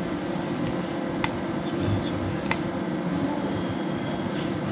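Steady room hum with a few short, sharp computer-mouse clicks, the clearest about one second and two and a half seconds in.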